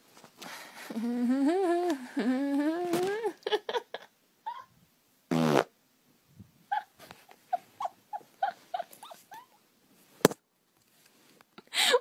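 A person farting: a long pitched fart wavering up and down in pitch, starting about a second in and lasting about two seconds, then a short, sharp one a couple of seconds later.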